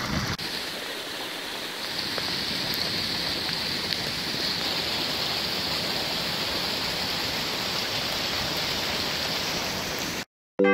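Shallow floodwater running in a sheet across a garden's paths and lawn: a steady rushing of water that cuts off suddenly near the end.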